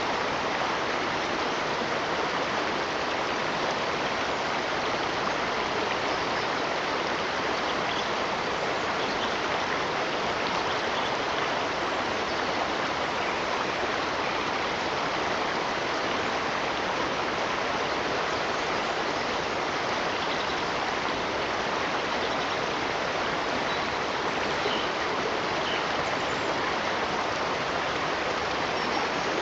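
Running water with a steady, even rushing sound that does not change.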